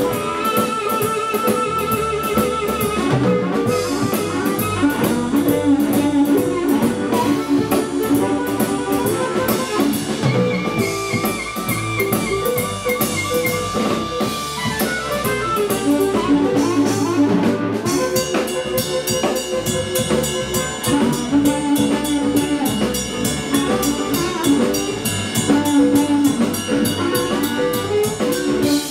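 Live electric blues band playing a shuffle, with an amplified harmonica taking a solo of held, wailing notes over drum kit, bass, guitar and piano.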